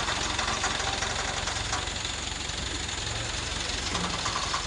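Crane engine running steadily with an even, fast low chug, as during a lift.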